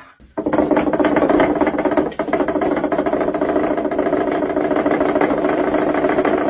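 A dog growling: a steady, rapidly pulsing rumble that dips briefly about two seconds in.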